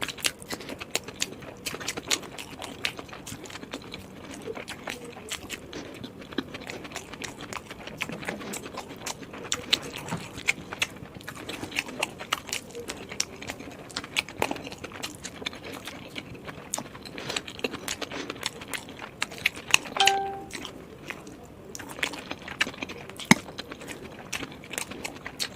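Person chewing and biting momo dumplings: irregular wet mouth clicks and smacks, with a short pitched sound about twenty seconds in.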